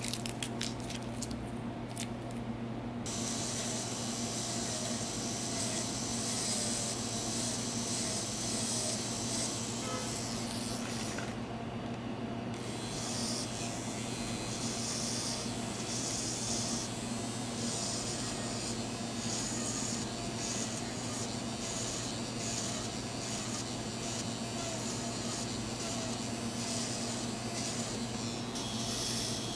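Electric nail drill running at a steady pitch with a fine bit pressed against a decorative charm on a gel nail, grinding it off, with a gritty scraping that comes and goes as the bit touches. Aluminium foil soak-off wraps crinkle during the first few seconds.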